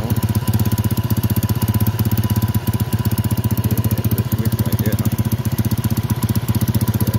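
Hensim 150cc ATV's single-cylinder engine idling steadily, with a fast, even beat.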